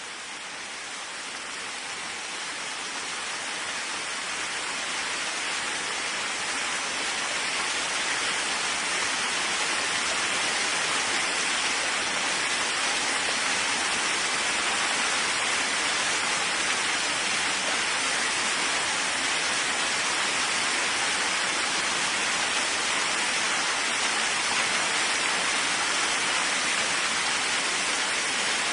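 Steady heavy rain falling, a dense even hiss. It fades up over the first several seconds, then holds steady.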